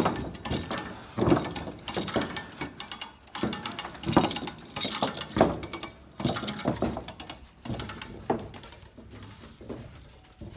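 Hand winch on a car trailer being worked, its ratchet clicking and metal parts clanking in irregular bursts as the strap is drawn in, dying down near the end.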